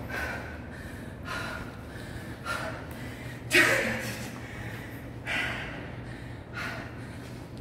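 A man panting heavily, out of breath from a hard exercise set just finished: about six deep gasping breaths, each a second or more apart, the one about three and a half seconds in the loudest with a voiced catch.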